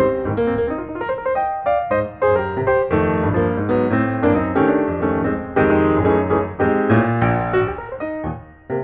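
Background piano music: a melody with chords.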